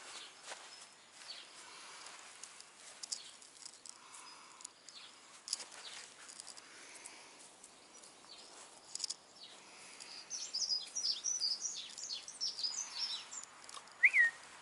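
Birds chirping and twittering, strongest in a busy burst from about ten seconds in, over scattered light ticks and rustles. Near the end comes one loud, short squeaky note that rises and then drops.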